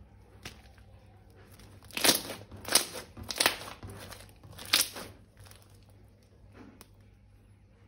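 Crinkling and crunching of slime-making materials being squeezed and handled by hand, with four louder crackles between about two and five seconds in.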